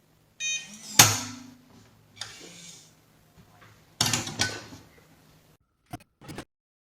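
A short electronic beep, then a sharp metallic clunk as the biometric pistol safe opens, followed by handling knocks, scraping and two small clicks near the end.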